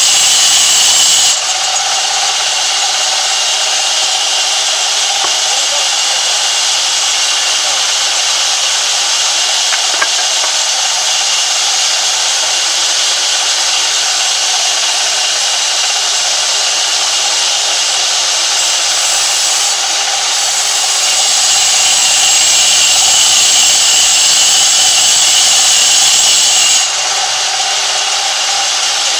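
Sawmill band saw ripping through a large log, a loud, steady, hissing sawing noise as the blade cuts a plank. The sound shifts abruptly about a second in and again near the end, and swells louder in the last third.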